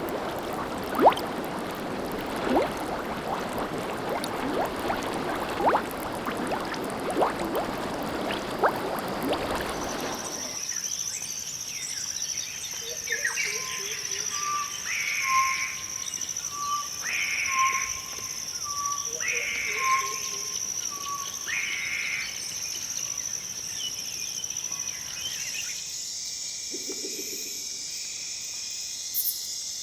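Outdoor nature ambience recordings. First comes a dense, crackling bed of sound with sharp clicks. About ten seconds in it cuts to a steady high insect drone, with an animal call repeating about every two seconds. Near the end the drone shifts higher.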